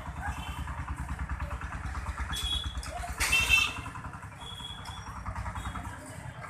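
An engine running with a steady low throb that fades a little near the end. A loud, brief, high-pitched burst with ringing tones comes a little after three seconds in.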